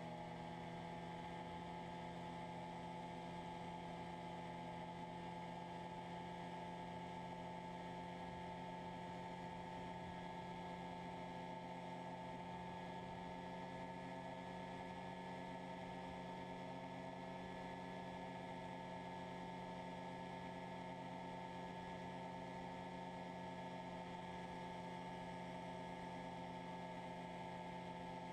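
Overhauled Rotax 503 two-stroke twin engine of an ultralight running steadily in cruising flight, a constant even hum.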